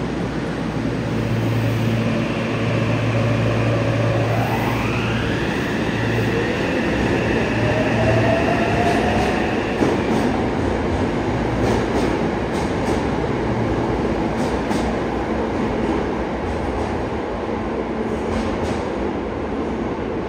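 Yokohama Blue Line subway train with a Mitsubishi IGBT-VVVF inverter pulling away. The traction motors whine in a tone that rises steeply about four seconds in and then holds, while a lower tone climbs. The whine then gives way to rolling rumble and clicks of wheels over rail joints as the train leaves.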